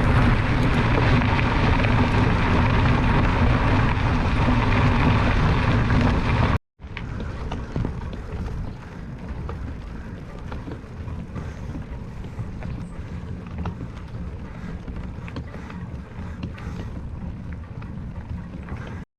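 Wind rushing over the microphone with a low rumble, cutting off abruptly about six and a half seconds in. It returns as a quieter, steadier wind noise with a few light knocks.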